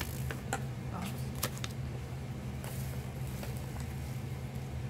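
Light crinkling and a few clicks of a small toy-pack wrapper being handled, mostly in the first second and a half, over a steady low hum.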